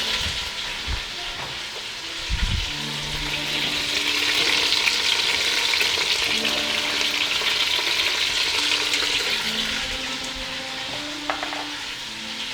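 Chicken pieces frying skin-down in hot oil on high heat: a steady sizzle that swells in the middle and eases near the end, with a dull knock about two seconds in.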